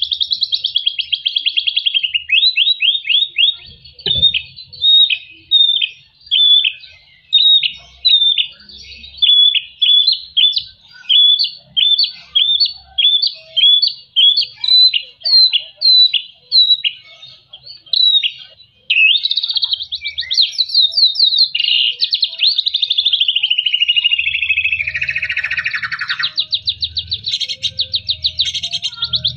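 White-rumped shama singing loudly: a long series of short, sharp repeated notes, about two a second, then from about nineteen seconds in, fast rapid trills and runs.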